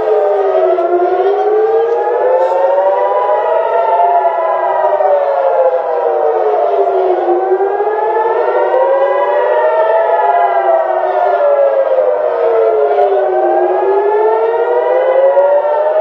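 Civil-defence air-raid sirens wailing, rising and falling slowly in pitch about every six seconds, at least two sirens sounding out of step with each other. They are the alert warning of an incoming attack.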